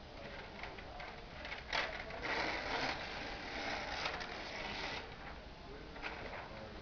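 A large sheet of flip-chart paper being lifted and turned over, crackling and rustling for about three seconds, with a sharp crackle about two seconds in.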